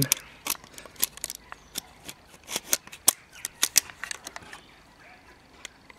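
Irregular sharp clicks and light knocks of a Sussex Armoury 4x20 scope's metal mounts being handled and set against the makeshift scope rail of an RO72 Panther Deluxe air pistol, thinning out near the end.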